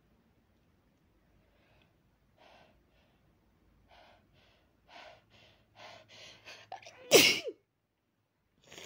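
A sneeze: a run of short breathy gasps that come closer and closer together, building up to one loud sneeze about seven seconds in. A short breath follows near the end.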